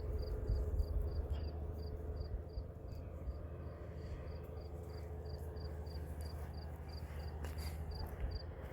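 Insect chirping: a short, high chirp repeating evenly about three times a second, over a low steady rumble.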